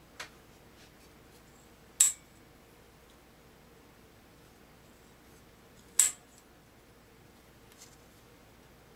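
Antique double-pole twist switch snapping sharply into position twice, about four seconds apart, with a fainter click just after the start: the switch being turned between on and off.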